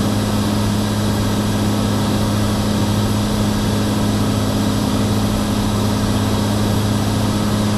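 Steady drone of a Cirrus SR22's six-cylinder Continental engine and propeller in cruise flight, heard inside the cabin, with an even low hum.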